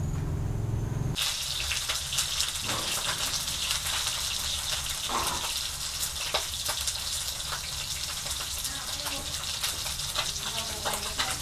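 Water running and splashing, as from a tap or being poured, starting abruptly about a second in and going on steadily with fine crackling splashes.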